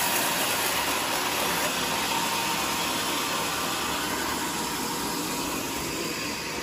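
Large sawmill band saw running steadily while a teak plank is fed through it, an even whirring hiss of blade and wood that eases slightly toward the end.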